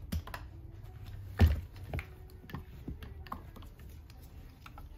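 Scattered small clicks and taps of alligator-clip test leads being handled and clipped onto wiring, with one louder knock about one and a half seconds in.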